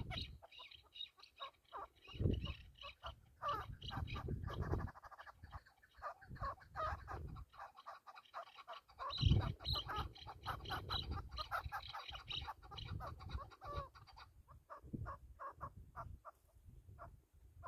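Chukar partridge calling: long runs of short, sharp notes, several a second, easing off near the end. Irregular low gusts of wind buffet the microphone, the strongest about nine seconds in.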